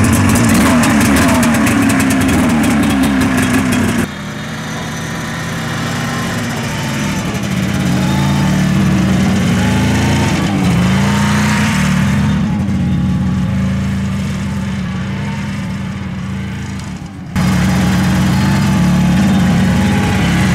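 Buran 640 snowmobile's two-stroke engine running just after starting, then carrying the snowmobile off through deep powder snow. The engine note rises and falls with the throttle.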